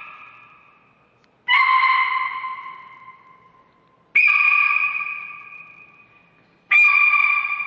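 A person's shrill, piercing high-pitched sound, repeated three times. Each one starts abruptly at a steady pitch and fades away over about two seconds.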